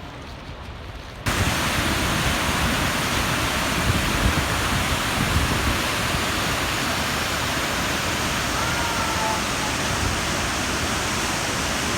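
Steady roar of a waterfall that starts abruptly just over a second in.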